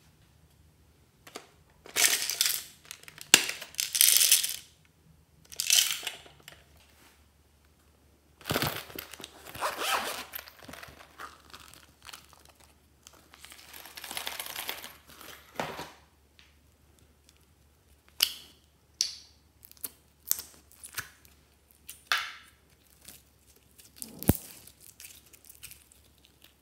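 Slime add-ins being handled and poured: small plastic containers and foam beads rattling and rustling in several longer bursts. In the last third, a series of short crackles as blue foam-bead slime is squeezed between the fingers.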